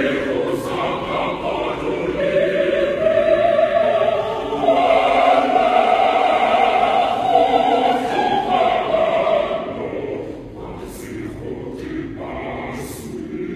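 A choir singing. The voices hold a long, loud high note through the middle, then carry on more softly.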